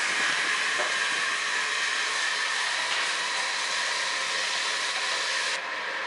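Shower head spraying water onto the tiles in a steady hiss, its nozzles freshly cleared of calcium buildup. The hiss drops slightly near the end.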